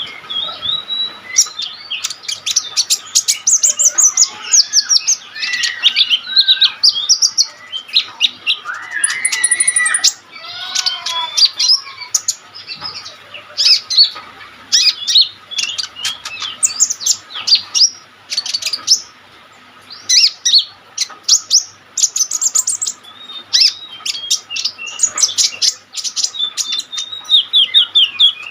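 Kolibri ninja sunbird (konin) singing hard: a fast, nearly unbroken stream of high chirps, trills and twittering sweeps, with a brief lull about two-thirds of the way through.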